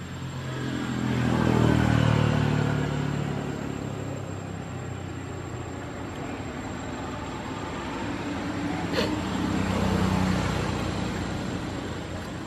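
Two motor vehicles pass by one after the other, the engine noise swelling and fading with pitch sliding down: the first is loudest about two seconds in, the second about ten seconds in. A single sharp click comes just before the second pass.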